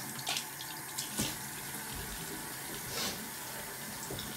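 Bathroom sink tap running water into the basin, a steady rush with a few short sharp sounds on top.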